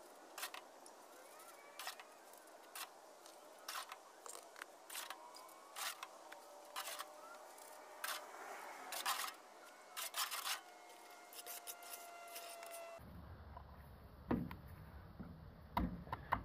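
Faint, irregular clicks and scrapes of wet concrete being packed down around a plastic septic riser with a wooden stick. About thirteen seconds in, a low steady hum comes in with a few louder knocks.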